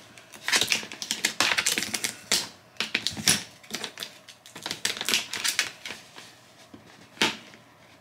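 Rapid, irregular clicking and clattering of small hard objects being handled, in clusters, with a single sharp click near the end.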